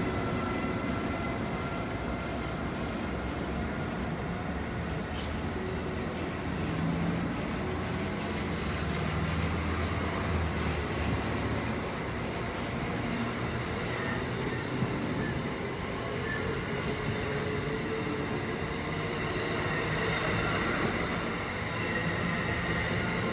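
Amtrak Amfleet passenger coaches rolling slowly past on the rails: a steady wheel-and-rail rumble, with a thin steady high tone over it and a few faint clicks.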